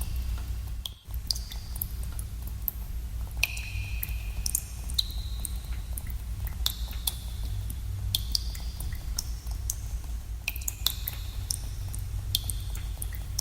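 Water drops falling irregularly into pools in a cave, many small plinks, some with a short ringing pitch, echoing over a steady low rumble.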